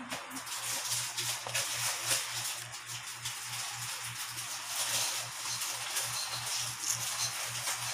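Dry breadcrumbs rustling and crackling in a bowl as battered squid pieces are tossed and pressed into them by hand, a steady scratchy rustle with small irregular crunches.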